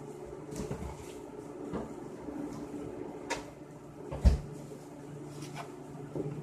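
Kitchen handling sounds while dumpling dough is mixed and liquid is added: scattered clicks and knocks of utensils and containers, with one heavier thump about four seconds in, over a steady low hum.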